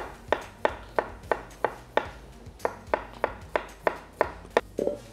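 Chef's knife slicing a red onion on a wooden chopping board, the blade knocking the board in a steady rhythm of about three strokes a second, with a short pause about two seconds in.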